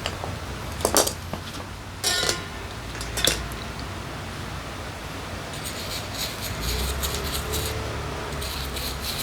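Small metal parts and tools clinking and knocking against each other, a few separate knocks in the first few seconds. A low steady hum follows near the end.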